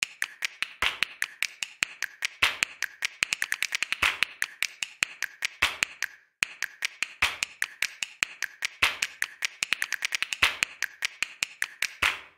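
Fast-forwarded audio of an orbital sander working a truck hood, heard as a rapid, uneven run of sharp clicks and ticks. There is a short break about six seconds in.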